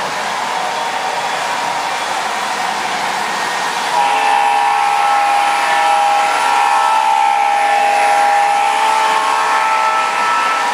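O gauge model diesel locomotive's sound-system horn, a multi-tone chord played through its onboard speaker, sounding about four seconds in and held for about six seconds, over the steady rushing noise of the model train running on the track.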